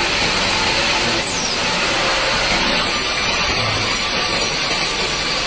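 Sawmill band saw running, a steady, even mechanical noise, with a faint high falling whistle about a second in.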